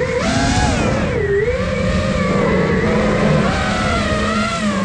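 A 5-inch iFlight Nazgul Evoque freestyle FPV quadcopter's brushless motors and propellers whining, heard from the drone's onboard camera. The pitch rises and falls with the throttle, dipping a little over a second in and climbing back.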